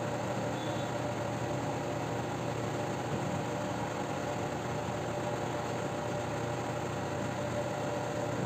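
Steady low machine hum, like a motor or fan running, with an even hiss and no distinct events.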